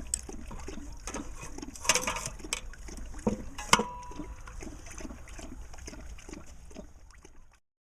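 Band saw tooth setter working along a blade: a steady low hum with a repeating low knock about three times a second, and several sharp metallic clicks, one about four seconds in ringing briefly.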